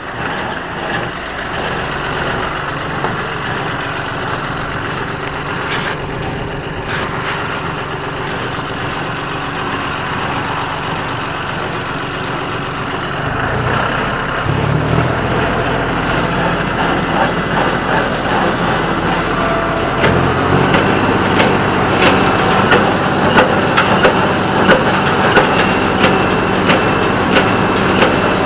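John Deere 5055E tractor running with a Massey Ferguson 1837 small square baler. About halfway through the sound grows louder, and in the last third the baler's plunger knocks in a steady rhythm about once a second as it packs hay into bales.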